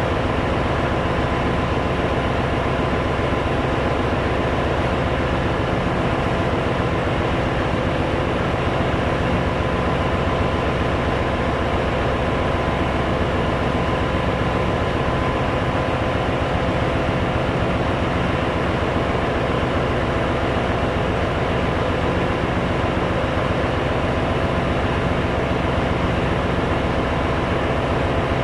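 Steady engine-room machinery noise aboard a cargo ship: a loud, even drone with a few steady hum tones, unchanged throughout. The main diesel engine is stopped with its crankcase doors open, so the drone comes from the other running machinery.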